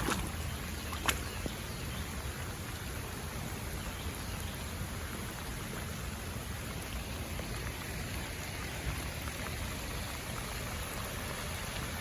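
Steady rain falling, with storm runoff water running over the ground from a damaged stormwater drain. A single sharp tick sounds about a second in.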